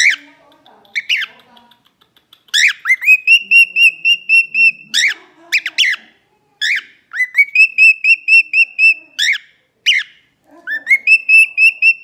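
Male cockatiel singing: sharp whistled notes, each followed by a run of quick repeated short whistles, about six a second, the phrase given three times.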